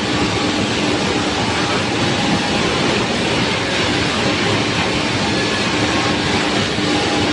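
Woodworking machinery running steadily: a constant loud rushing noise with a faint hum.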